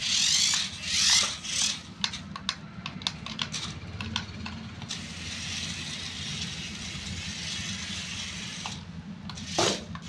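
Battery-powered RC rock crawler car driving over artificial turf: its electric drive motor and gears whirring and its tyres brushing the plastic grass. Several rushes of noise in the first two seconds, scattered clicks, then a steady whir for several seconds.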